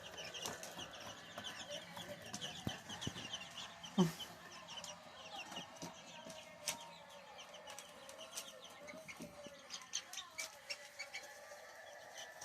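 Many baby chicks peeping at once, a steady stream of quick high peeps with scattered clicks and rustles. About four seconds in, one louder, lower call slides down in pitch.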